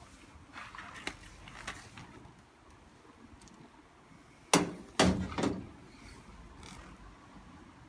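A few light clicks, then two loud knocks about half a second apart, followed closely by a softer one.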